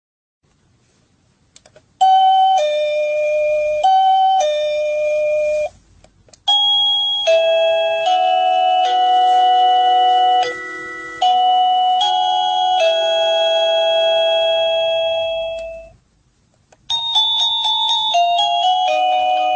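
Sadotech Model C wireless doorbell chime playing electronic tunes. First comes a two-note ding-dong, played twice. After a short pause comes a longer multi-note melody that fades out. Near the end a third, quicker tune begins.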